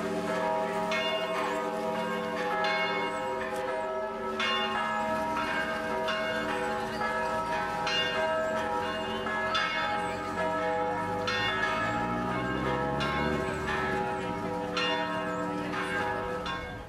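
Church bells in the Orthodox church's tower pealing: several bells struck over and over, their tones ringing long and overlapping. The peal cuts off suddenly at the very end.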